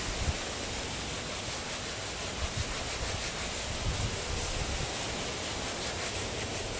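A cotton sock soaked in insect repellent rubbing back and forth over a hazy plastic headlight lens, wiping off the oxidised film.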